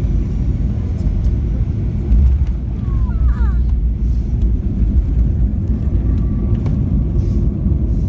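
Cabin noise of a Boeing 737 on its landing rollout: a loud, steady low rumble of the engines and the wheels running along the runway.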